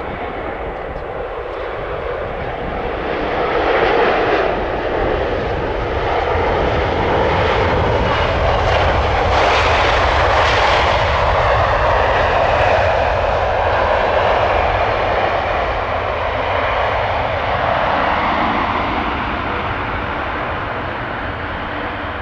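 Boeing 787-9 Dreamliner's jet engines running as it touches down and rolls out on a wet runway. The steady rush builds over the first few seconds, is loudest around the middle, then eases off toward the end.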